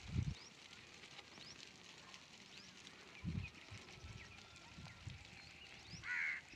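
Small birds chirping with quick rising notes over a faint outdoor background, with a few low thumps and one loud half-second animal call near the end.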